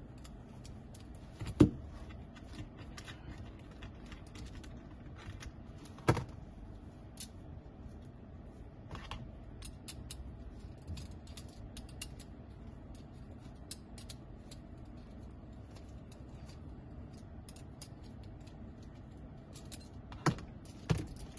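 Scattered metallic clicks and knocks of a hardened steel vise jaw and its screws being handled and loosened. Sharp knocks come about a second and a half in and about six seconds in, and two more near the end.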